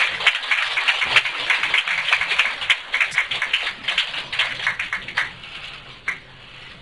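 Audience applause: many hands clapping, dying away about five seconds in, with one last clap a second later.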